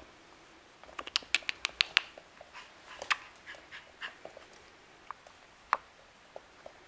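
Eight-week-old border terrier puppy at play: a quick run of short, sharp yaps and clicks about a second in, then a few scattered single ones.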